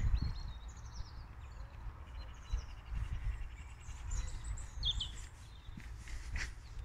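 Small songbirds singing and chirping: several short, high phrases and a quick rattling trill. Under them are low, uneven thumps of footsteps on a dirt path.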